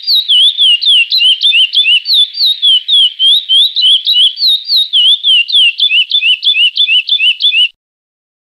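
Curió (chestnut-bellied seed finch) singing the Praia Clássico song: a fast run of clear whistled notes, about four or five a second, each sliding up or down in pitch. The song cuts off suddenly near the end.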